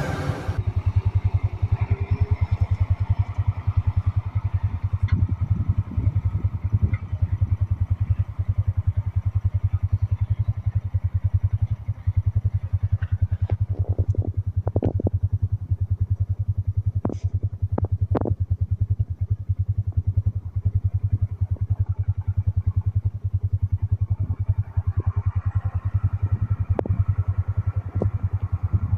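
International Harvester tractor engine running steadily with a rapid even throb, with a few sharp knocks and clanks about halfway through.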